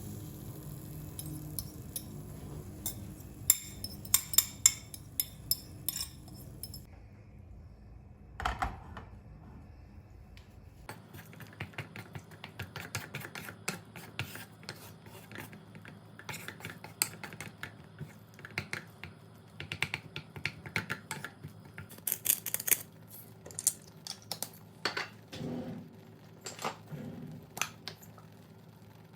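Kitchen utensils and dishes being handled during food preparation: many short clicks, knocks and clinks. A low steady hum runs under the first several seconds, then stops abruptly.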